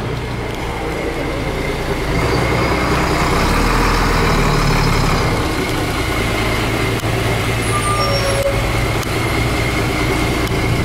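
Nissan Diesel Space Runner RM city bus with a 6.9-litre FE6F six-cylinder diesel, pulling in to the stop close by. It is loudest a few seconds in, then stands idling with a steady high whine. A few short beeps sound about eight seconds in.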